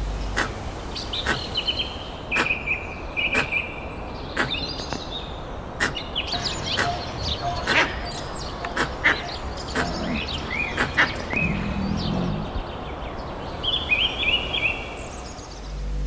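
Birds chirping and calling over a natural background hiss: many short high chirps and trills, scattered sharp clicks, and a few quick falling whistles about ten seconds in.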